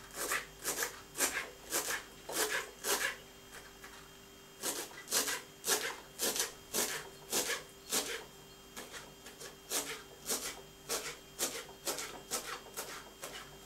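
Kitchen knife finely chopping dill on a wooden cutting board: sharp strokes about two a second, with a short pause about three seconds in.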